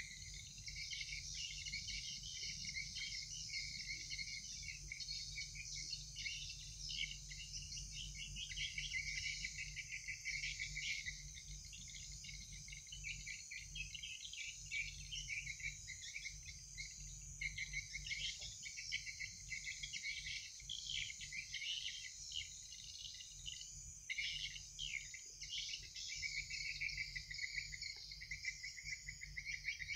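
A chorus of night insects, crickets, chirping in high, rapid, overlapping trills, over a steady low hum.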